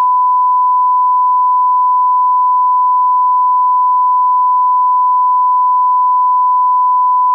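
Loud line-up test tone played with SMPTE colour bars: a single steady pure tone, unbroken.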